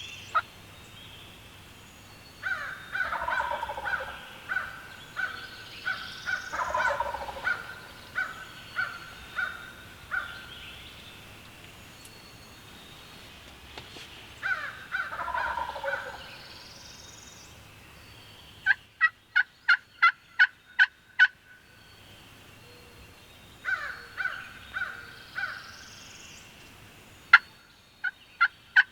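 Wild turkey gobbler gobbling again and again, each call a loud rattling burst; some of the calls are crisp trains of rapid pulses.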